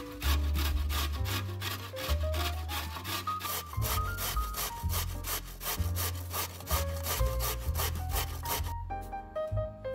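A vegetable rubbed back and forth on a hand grater, about five rasping strokes a second, stopping abruptly about nine seconds in.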